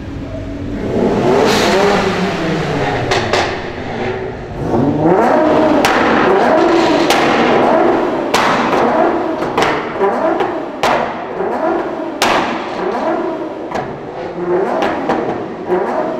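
Nissan GT-R R35's twin-turbocharged V6 revved repeatedly while standing, the engine note rising and falling, with a series of sharp exhaust pops and bangs between the revs, in a tunnel.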